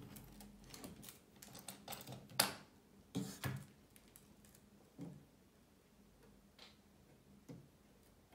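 Small clicks and taps of soldering tools and wires being handled on a workbench: a quick run of clicks over the first few seconds, the loudest about two and a half seconds in, then a few scattered taps. A faint steady hum lies under them.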